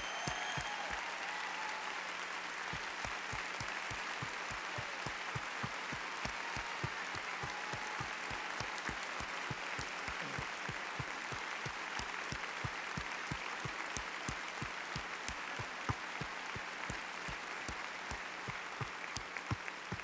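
Sustained audience applause: many people clapping steadily without a break.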